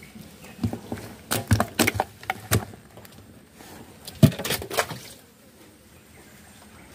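Irregular knocks and clatters of gear being handled in a small wooden boat. They come in a quick run in the first three seconds and again a little after four seconds in, where the loudest knock falls.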